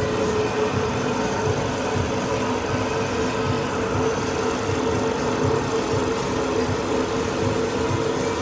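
Metal lathe running steadily with a constant tone as it spins a large steel disc, the cutting tool being fed across the disc's face.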